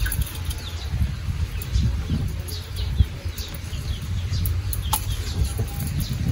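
Small birds chirping repeatedly, short falling notes, over a steady low rumble, with one sharp click about five seconds in.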